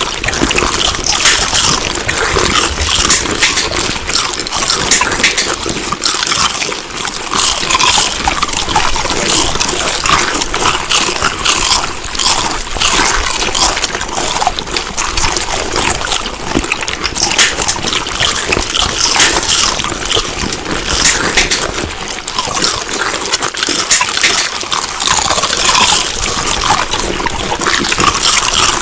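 Close-up chewing: a person's mouth working food, with dense wet clicks and crackles throughout.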